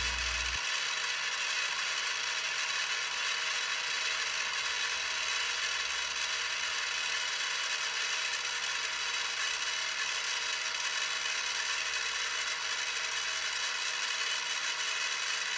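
Harbor Freight mini-mill running steadily, drilling the center hole through a small brass gear: an even mechanical whine with no let-up.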